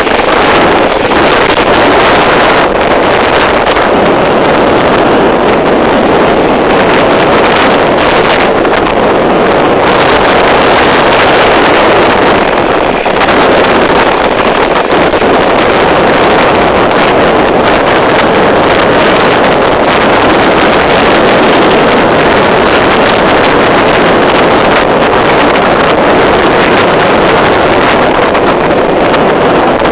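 Loud, steady rush of wind noise buffeting the microphone on a boat under way.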